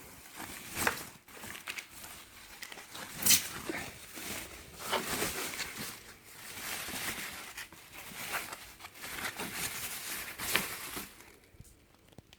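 Packing material being handled and pulled off a coffee machine: crinkling and rustling with a few sharp knocks, dying away near the end.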